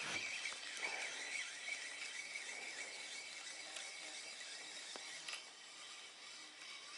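Spinning reel being wound to bring in a small ruffe on the line: a steady, fairly quiet whir that fades gradually, with a faint click or two.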